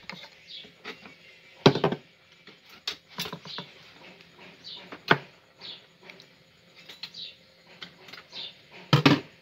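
Scattered taps, clinks and scrapes in a stainless steel mixing bowl as two eggs are added from a metal cup. There are a few sharper knocks, the loudest near the end.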